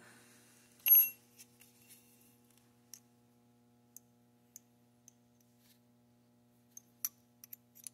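Small steel AR-15 bolt parts and a gauge handled by hand: one sharp metallic click with a brief ring about a second in, then faint scattered ticks and a few more small clicks near the end, over a faint steady hum.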